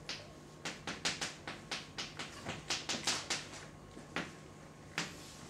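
Chalk writing on a blackboard: a quick, irregular run of sharp taps and short scrapes as the words are written, thinning out to a few taps after about three and a half seconds.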